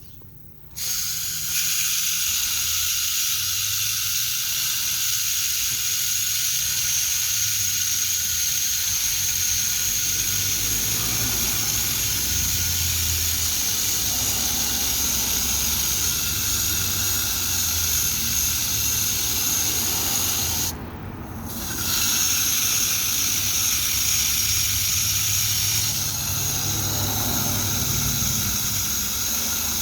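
Running water hissing steadily as a stream pours over and rinses soap off a small bird. The water cuts off for about a second, roughly twenty seconds in, then runs again.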